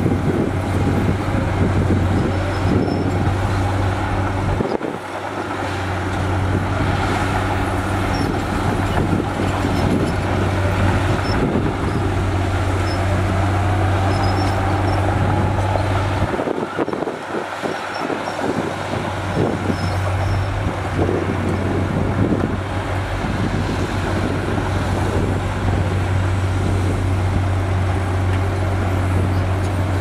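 Heavy diesel engines running steadily with a strong low drone: a dump truck's engine held up to drive its hydraulic hoist as the bed tips and unloads dirt, with a bulldozer working close by. The low drone breaks off briefly twice.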